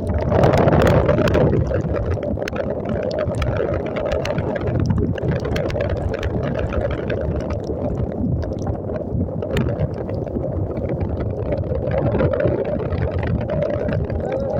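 Motorcycle riding on a wet road in the rain: a steady rush of wind over the microphone mixed with the engine and wet-road noise, with scattered sharp ticks.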